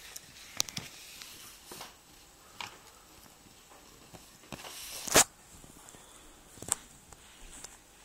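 Handling noise from a handheld phone: scattered light clicks and rubs, with one loud knock about five seconds in.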